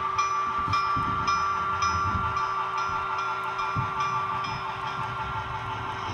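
Sound-equipped model railroad locomotive running, its sound playing a steady engine tone over a low rumble, with a bell-like ring repeating about twice a second.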